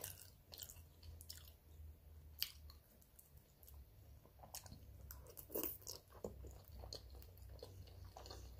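Faint chewing of a mouthful of spaghetti, with soft wet mouth clicks scattered through it and one sharper click about two and a half seconds in.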